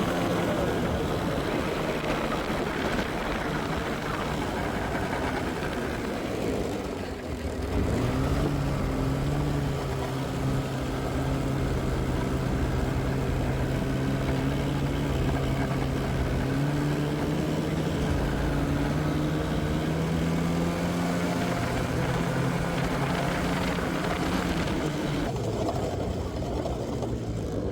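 Snowmobile engine running steadily under way, with a rushing noise around it. The engine note dips about seven seconds in, then comes back stronger and climbs a little past halfway.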